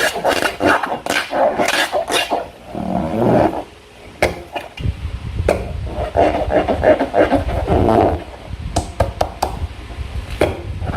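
Slime being worked by hand: irregular sticky squelching with scattered sharp clicks and crackles, and a low rumble from handling joining about halfway through.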